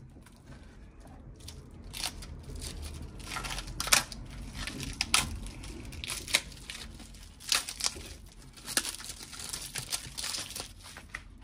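Thin plastic packaging crinkling and tearing by hand as a coiled air-assist hose is pulled out of its bag: irregular rustling with sharp crackles.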